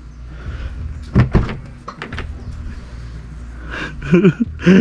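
Car door being unlatched and swung open: two solid clunks about a second in, followed by a few lighter clicks.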